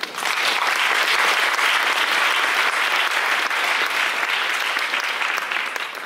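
Audience applauding, starting at once and dying away near the end.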